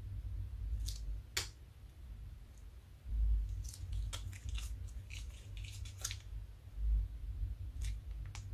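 Clear plastic piping bag squeezed over soft slime: scattered small crinkles and wet clicks, a few at first, then a dense cluster in the middle and a couple more near the end.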